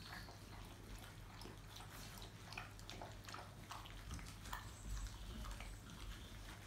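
A litter of St Bernard puppies eating dry kibble from metal bowls: faint, irregular crunching and clicking of many small mouths at the food and bowls.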